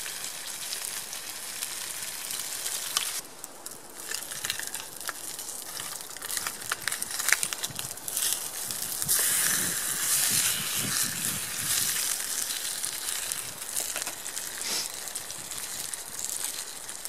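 Slices of Bacon Grill frying in a pan over a campfire: a steady hissing sizzle with scattered crackles and spits of fat. The hiss drops back about three seconds in and swells louder again near the middle.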